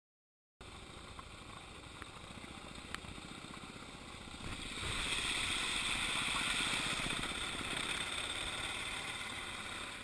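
Suzuki DR650's single-cylinder four-stroke engine running as the motorcycle rides through a shallow creek, with water splashing off the front wheel. It starts about half a second in and grows louder about halfway through, where the hiss of spray comes up.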